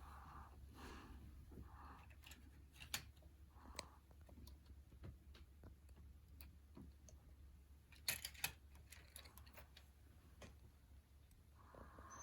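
Near silence with faint, scattered plastic clicks and taps and a short cluster of louder clicks about eight seconds in: a Lego Technic model being handled.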